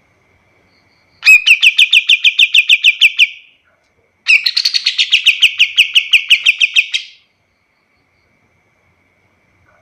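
Kapas tembak, a bulbul, singing its rapid 'shooting' song. It gives two fast trills, the first about two seconds long and the second about three, each a quick run of downward-slurred notes at about eight a second.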